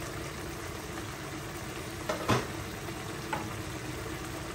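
Onion and tomato masala with water simmering uncovered in a wok, a steady bubbling sizzle. A short clink about two seconds in.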